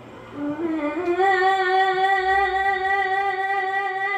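An elderly woman singing a Naxi folk song: her voice comes in low about half a second in, slides up, and holds one long steady note.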